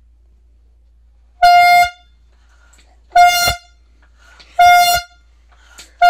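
Air horn blown in short, loud blasts of about half a second each, one steady pitch, repeated about every one and a half seconds: three blasts, with a fourth starting at the very end.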